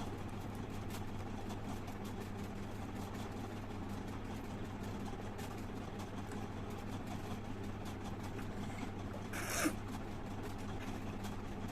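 Steady low background hum of room noise, with a short rustling hiss about nine and a half seconds in.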